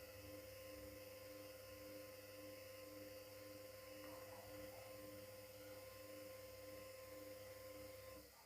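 Whirlpool FL 5065 washing machine giving a faint steady electrical hum, with a second tone pulsing about twice a second underneath. The hum cuts off about eight seconds in.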